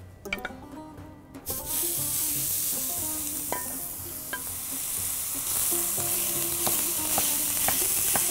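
Raw minced meat laid into a dry frying pan on the highest heat starts sizzling suddenly about a second and a half in, and the hiss carries on while a wooden spatula breaks the meat up, with a few light clicks of the spatula against the pan. The pan has no oil; the meat fries in its own fat.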